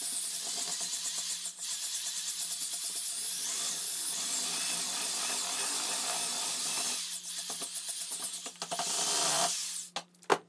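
Electric drill driving an all-metal paddle mixer through a thick, wet paper-clay mix (toilet-paper pulp, glue, caulk and flour) in a bucket. It runs steadily, dips briefly about 1.5 s and 7 s in, and stops shortly before the end, followed by a couple of clicks.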